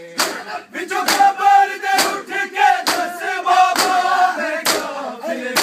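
A crowd of men doing matam, beating their bare chests with open palms in unison, one loud slap about every second. Over the slaps the men chant a mourning lament together, their voices joining in about a second in.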